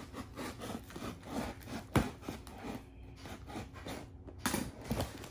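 Knife cutting through the cardboard of a shipping box in short, irregular strokes, with a sharper crack about two seconds in.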